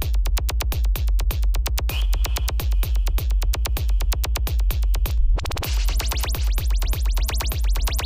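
Fast, loud electronic dance music played on a drum machine and sampler: a rapid run of sharp drum hits over a heavy bass kick. The upper drums break off for a split second about five seconds in, then the pattern comes back.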